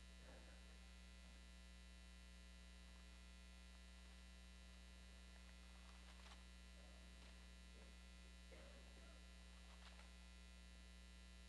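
Near silence with a steady low electrical mains hum, and a few very faint soft rustles.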